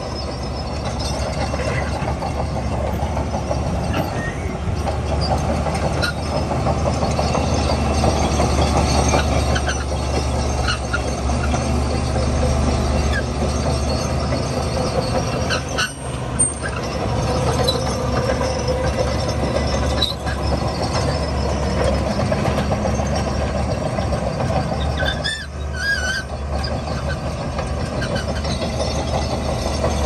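Heavy diesel earthmoving machinery, a dump truck and a crawler bulldozer, running steadily under load as a load of sand is tipped and pushed, with a couple of brief high squeals late on.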